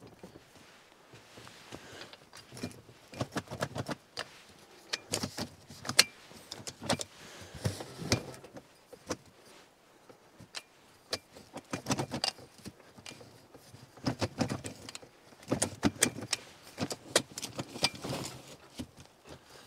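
A fold-out rooftop tent being opened on a pickup: the metal ladder clacks and rattles as it is pulled down, and the tent canvas rustles as it unfolds. The sound comes in irregular bursts of clicks and rustling.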